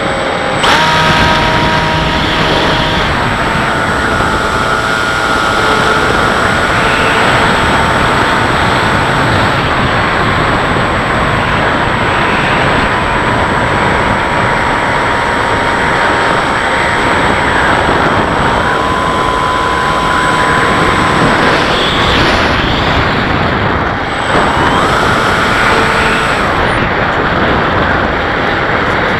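Bixler RC plane's electric motor and propeller heard from its onboard camera: a whine that steps up and down in pitch as the throttle changes, over a steady rush of wind.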